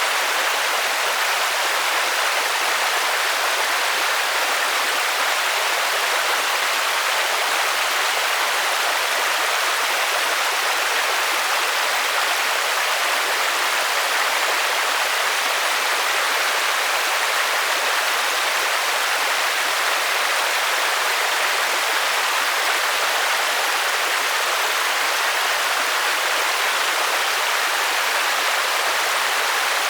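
Steady rainfall: an even, unbroken hiss, with no single drops standing out and little low rumble.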